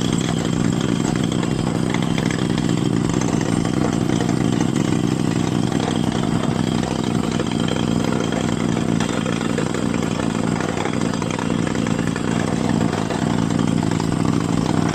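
Rock drilling rig's engine running steadily, an even low drone that holds without a break.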